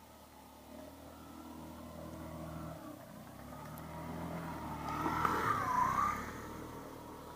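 A small motor scooter riding up and passing close by: its engine hum grows louder, peaks with a swooping whine about five to six seconds in as it goes past, then fades away.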